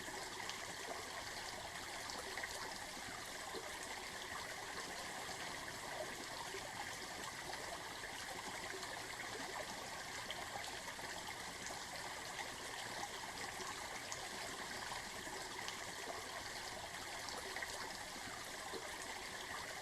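Steady running water, a stream or small waterfall flowing evenly without a break.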